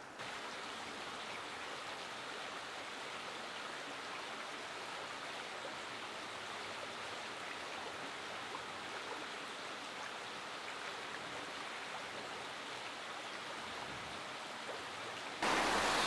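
Steady rush of a shallow rocky river. Near the end it becomes suddenly louder as a small cascading waterfall takes over.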